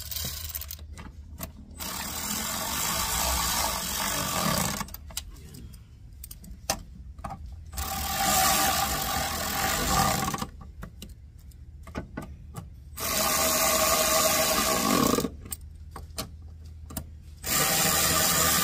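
Cordless rattle gun on a long socket extension driving in the wiper motor's mounting bolts, run in four bursts of about two seconds each with pauses between, each winding down at its end.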